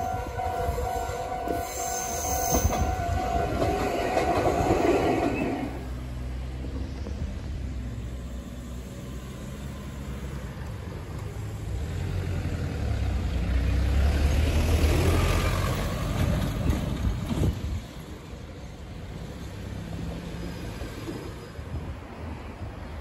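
Japanese railway level-crossing warning bell ringing in a steady repeating pattern as a Meitetsu train runs by on the Mikawa Line. The bell stops about six seconds in. Later a low rumble swells and then drops away suddenly.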